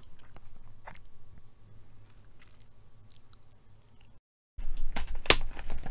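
A faint, quiet stretch with a few soft clicks, then a brief dead silence, then the crinkling and crackling of a plastic trading-card pack wrapper being handled and torn open near the end.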